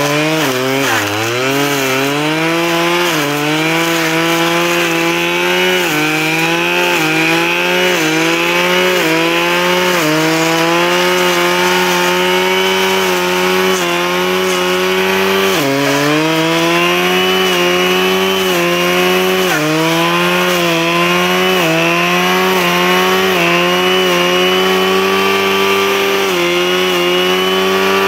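Husqvarna 535RJ two-stroke brushcutter running near full throttle while its flail blade cuts through brush. The engine note dips again and again as the blade bites into growth, then climbs back as it clears.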